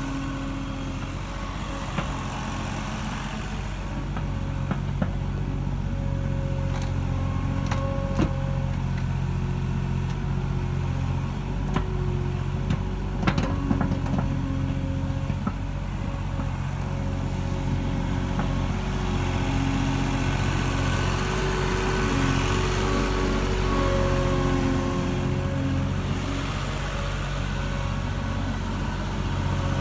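Avant 760i compact loader's diesel engine running steadily under working load while the bucket digs out stumps, with a few sharp knocks about halfway through.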